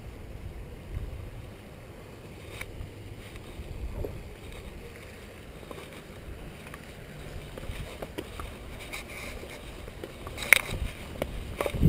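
Wind rumbling on the microphone, with scattered light knocks and one sharp click about ten and a half seconds in.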